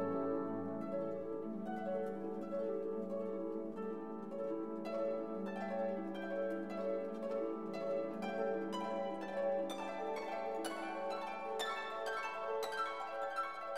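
Background instrumental music of quick plucked string notes over held tones, the plucking growing brighter and busier in the second half.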